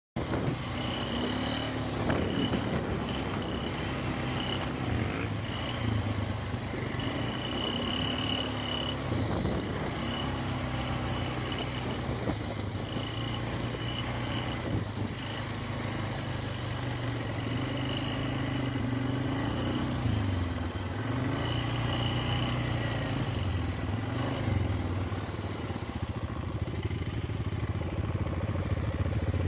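2000 Polaris Sportsman 500 ATV's single-cylinder four-stroke engine running, its pitch rising and dipping slightly a few times, with a high-pitched chirp that keeps cutting in and out. The chirp is the unexplained noise the owner is asking about.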